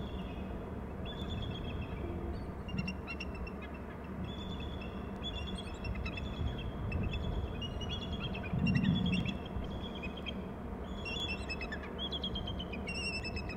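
Small birds chirping: many short, clear, high calls, repeated in quick clusters throughout. Behind them is a steady low rumble of background noise.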